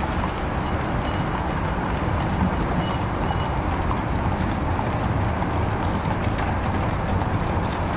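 Steady low rumble of a streetcar rolling along its rails, with faint clip-clop of horses' hooves and a couple of brief high chirps.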